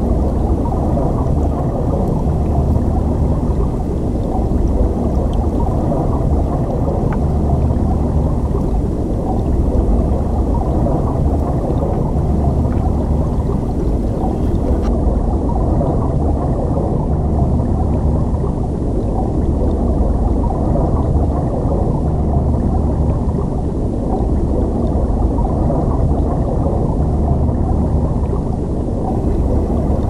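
Stream water flowing over a rocky bed, heard from underwater: a steady low rumble and gurgle with little above the low range.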